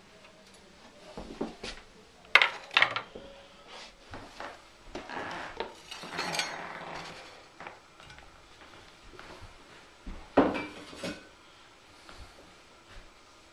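A steel casting flask clanking and knocking as it is handled with gloved hands, with a longer scraping rush midway as the moulding sand slides out into a plastic bin. Two more sharp knocks come near the end as the flask is set down.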